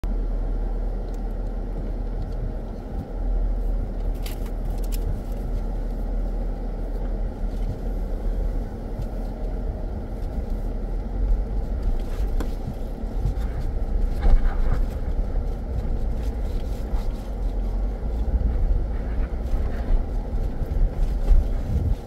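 Cabin noise of a 2021 Jeep Grand Cherokee Trailhawk driving on a dirt track: a steady low rumble of engine and all-terrain tyres, with a few clicks and knocks.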